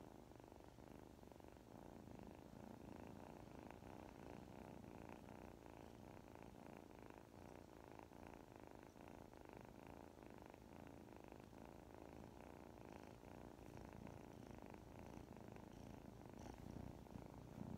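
Kitten purring softly and steadily.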